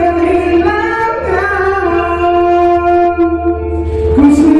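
A man singing into a handheld microphone, holding long notes with short breaks between phrases.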